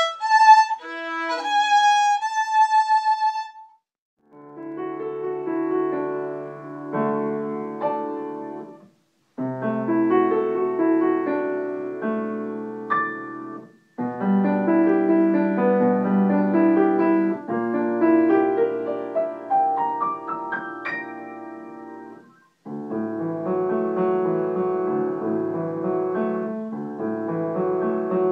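A violin plays its last notes, ending on a held note about three seconds in. After a short gap a grand piano plays a passage, broken by brief stops three times.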